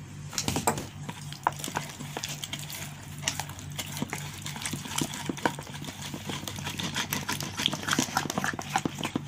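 Metal spoon beating a thick egg-white and starch batter in a stainless steel bowl: rapid, irregular clicks and clinks of the spoon against the bowl.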